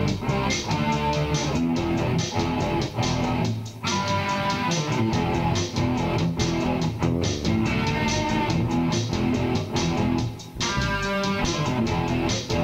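Instrumental music: strummed guitar with a bass guitar line underneath, playing a steady rhythm.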